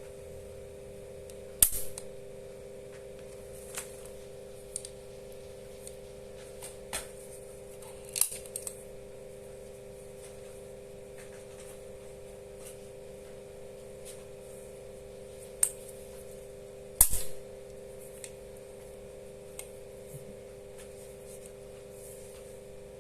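Spring-loaded needle-free injector pen snapping sharply as it fires, twice loudly, about two seconds in and near the end. Between the shots come smaller clicks of the pen being cocked and handled, over a steady low hum.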